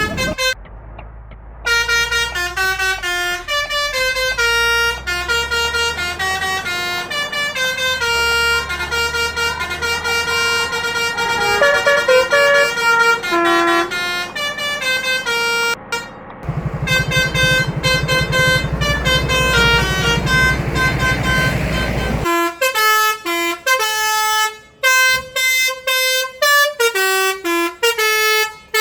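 Basuri 'telolet' musical horns on buses playing quick stepped melodies, note after note at shifting pitches, answering one another in a horn battle. For a stretch past the middle a low engine rumble runs under the horns, then cuts off, leaving the horns alone.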